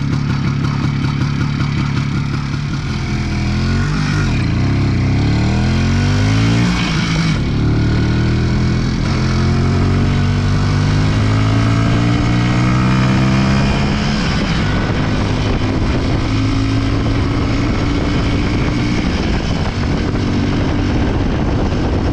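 Izh Planeta 4 single-cylinder two-stroke motorcycle engine running under way. The revs climb in several quick rises through the gears a few seconds in, then build slowly and drop back about two-thirds through.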